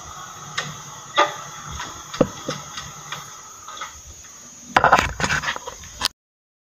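Motorcycle engine running low, with scattered clicks and knocks. About five seconds in, a loud stretch of rubbing and knocking on the handlebar-mounted action camera as it is handled, which cuts off suddenly about six seconds in.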